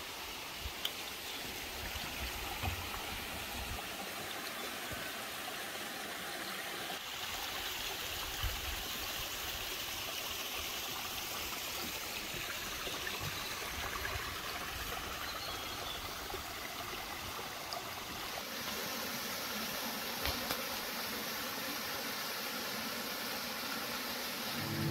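Shallow rocky mountain stream running and trickling over stones, a steady rush of water.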